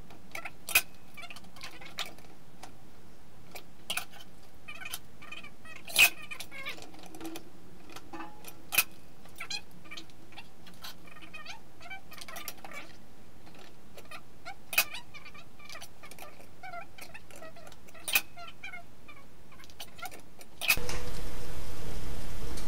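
Sparse sharp clicks and taps, about a dozen spread out, as a tape measure's blade is set against the rim of a stainless steel buckler, over a quiet steady background. Near the end a loud steady rushing noise cuts in abruptly.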